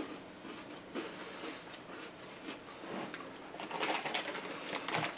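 Faint rustling and crinkling of a plastic snack bag being handled, loudest about four seconds in and again just before the end, over quiet chewing of crunchy cookies.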